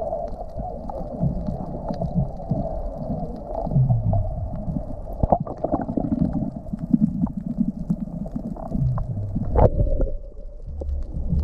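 Muffled underwater sound picked up by a submerged camera: low rumbling and gurgling of water moving around it, with scattered clicks and bubble pops, two of them sharper about five and nine seconds in. A steady hum runs underneath and stops about ten seconds in.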